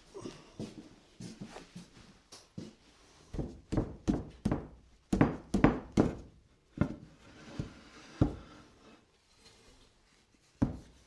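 Irregular wooden knocks and thunks as the parts of a solid-wood bench with lap joints are lifted apart and set down, with a close run of knocks a few seconds in and single thunks later.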